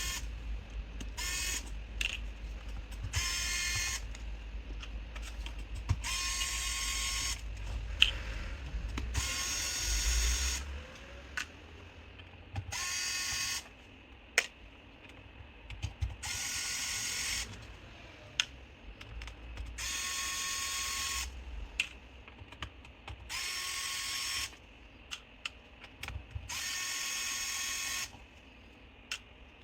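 Small electric screwdriver whirring in short bursts about eight times, backing out a laptop's bottom-cover screws, with light clicks of screws and tool between the bursts.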